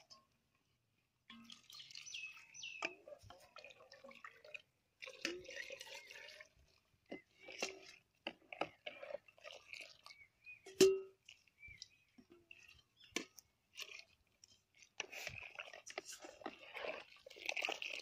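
Cooking sounds of thin kanji porridge being worked: a wooden spoon scraping rice-flour batter in a steel bowl, then a coconut-shell ladle lifting kanji and pouring it back into an aluminium pot, with splashes, scrapes and irregular knocks. The loudest is one sharp knock about eleven seconds in.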